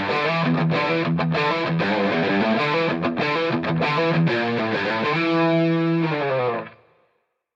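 Outro music on distorted electric guitar, ending on a held chord about five seconds in that dies away to silence near the end.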